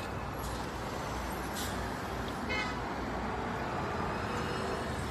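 Steady hum of street traffic, with a short high beep about two and a half seconds in.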